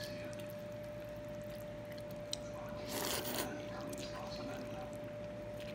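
Someone eating noodle soup: chopsticks working rice noodles in curry broth, with one short wet slurp about three seconds in, over a steady faint hum.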